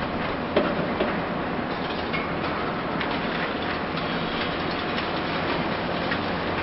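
Hitachi Zaxis 870 high-reach demolition excavator at work: steady engine noise under a constant, irregular crackle and clatter of breaking concrete and debris.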